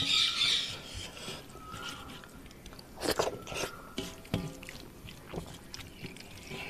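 A hand mixing and squeezing wet rice and curry on a metal plate: irregular squishing and sticky crackles, with fingers scraping the plate. The loudest bursts come right at the start and about three seconds in.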